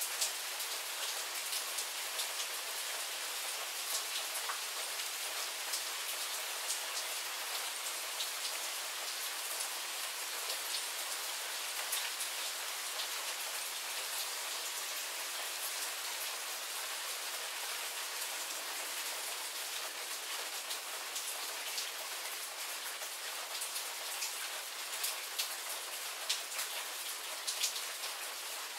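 Steady rain shower falling: an even hiss with many sharp ticks of single drops landing close by.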